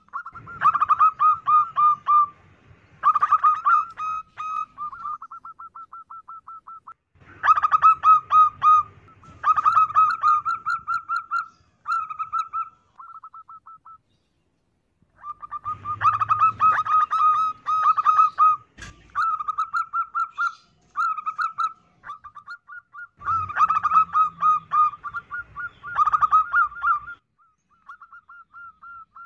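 Zebra dove (perkutut) cooing: loud bouts of rapid staccato coos joined by softer, fast trilled runs, with two short pauses. This is the perkutut lure call (pancingan) used to draw in other doves. A single sharp click comes about two-thirds of the way through.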